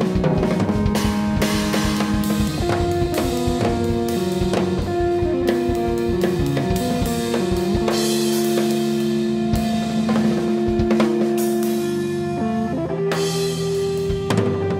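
Hollow-body electric guitar and drum kit playing together live, the guitar holding long notes over busy drums and cymbals.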